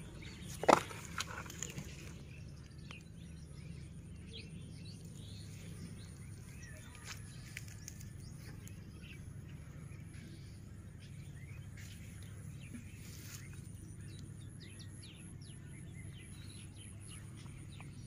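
Open-air ambience at a flooded field edge: a steady low hum, a thin high steady tone, and faint scattered chirps and ticks. One sharp clack about a second in is the loudest sound.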